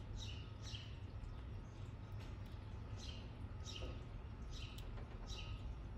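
A bird chirping in short, high, downward-sliding notes, mostly in pairs with gaps between, over a faint steady low hum.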